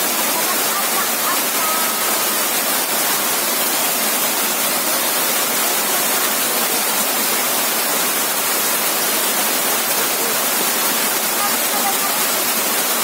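Flowing river water: a steady, even hiss of running water that holds with no breaks.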